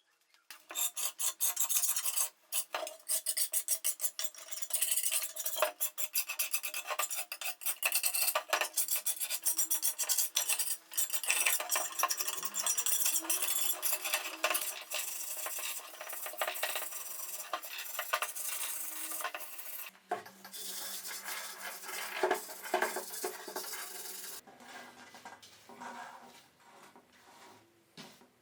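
Metal being scraped or sanded with an abrasive tool, rapid rasping strokes that start and stop. The sound changes and softens about twenty seconds in, then carries on as lighter, scattered scraping.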